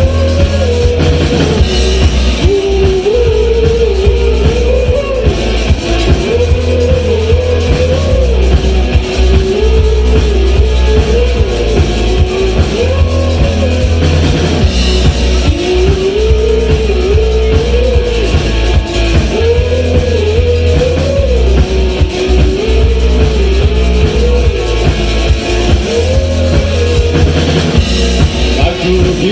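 Band playing rock music: drum kit, guitar and a steady bass, with a lead melody line wavering up and down in the middle range.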